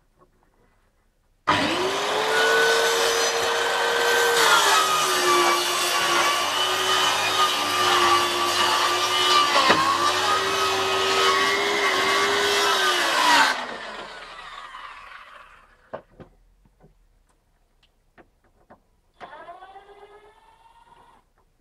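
Zoodos 165 mm 1200 W plunge track saw starting up with a high whine, then running loud. Its pitch dips a little after a few seconds, as under the load of cutting. It is switched off about thirteen seconds in and winds down with falling pitch, and a short falling whine follows near the end.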